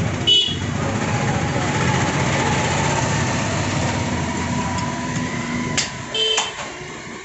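A heavy steel butcher's cleaver chopping goat meat on a wooden stump block: one sharp, ringing knock about a third of a second in and two more near the end. Under it, an engine runs steadily, then fades toward the end.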